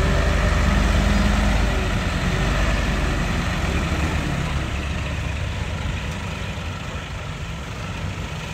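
Dump truck engine running steadily to power the tipper hoist as the loaded bed rises and tips out rock and soil; the engine is loudest at first and eases off gradually.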